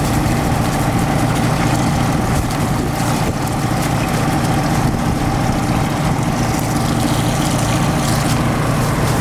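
An engine running steadily at a constant speed, a low drone that does not change. Near the end, water from a garden hose splashes onto miner's moss in a sluice box.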